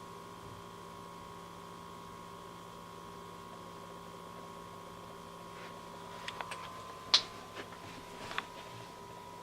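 Drobo 5N's cooling fan running with a steady hum and a constant whine, noise the owner calls excessive for a brand new unit. A few clicks and one sharper tap come about six to eight seconds in.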